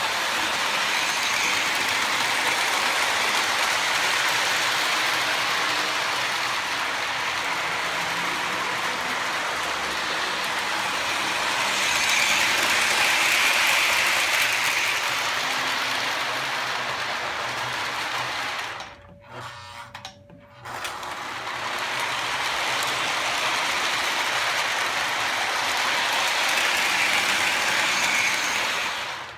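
Lionel O-gauge Jersey Central GP9 diesel locomotives running with a train of freight cars. Their motors and gears make a steady whirring rattle, and the wheels clatter over the track. It is loudest as the train passes close. The noise drops out for about two seconds around two-thirds of the way through, then picks up again.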